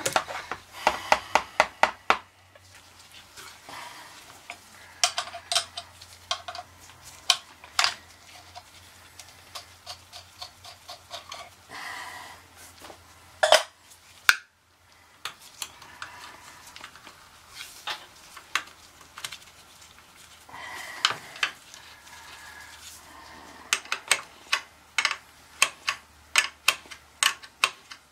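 Metal hand tools clicking and clinking against the brass fitting on an oil burner's fuel-pump oil line, with quick runs of sharp clicks near the start and again near the end.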